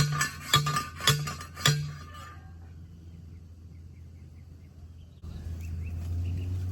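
Steel T-post driver pounding a metal T-post into the ground: four ringing metallic clanks about two a second, stopping about two seconds in. Quieter outdoor ambience with faint high chirps follows.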